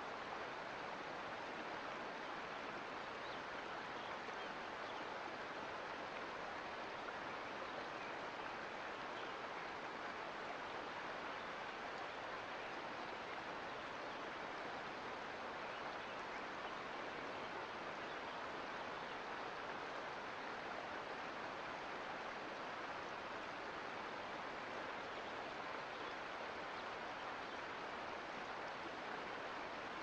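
Mountain creek water rushing steadily, an even, unbroken hiss.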